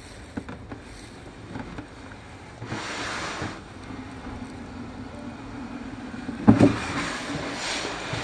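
Cardboard shoe box drawer sliding out of its outer sleeve, cardboard rubbing on cardboard in two long scrapes, with a sharp knock a little after the middle as the box is handled.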